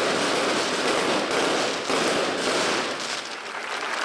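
Firecrackers going off in a rapid, continuous crackle, easing slightly near the end.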